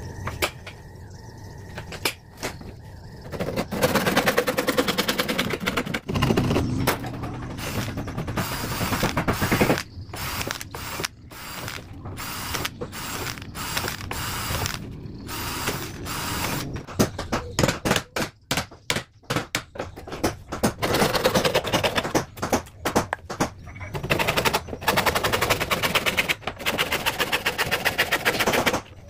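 A cordless drill boring into a wooden strip, starting and stopping, and later a hand saw cutting across the wood with quick back-and-forth strokes.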